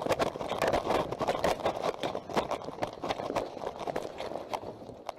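Quick, irregular footsteps and knocks of players running on a hard floor, thinning out near the end.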